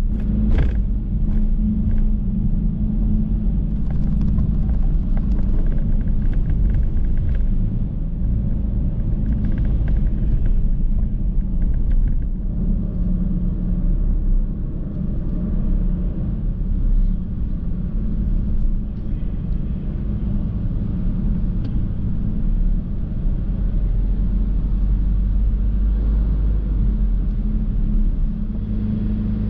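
Steady low engine rumble with a deep constant hum, unchanging in level.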